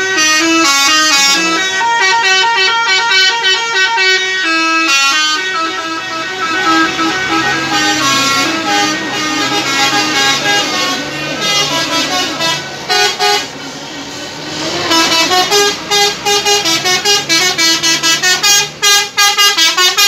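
Musical "telolet"/basuri horns on tour buses playing quick melodic runs of horn notes. Near the end they break into rapid short repeated blasts.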